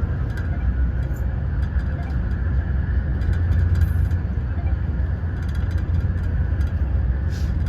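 A moving train running: a steady low rumble with a faint steady high hum above it and light scattered ticks and rattles.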